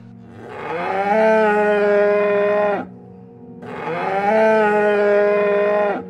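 A cow mooing twice. Each moo is long, rising at the start and then held steady for about two seconds before cutting off.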